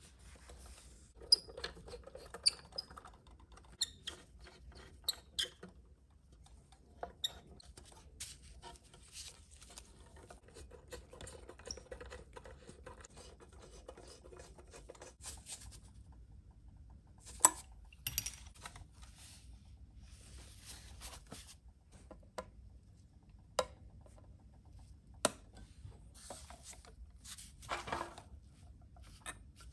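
Small parts and tools handled at a workbench: scattered light clicks, taps and rustling, with a few sharper ticks.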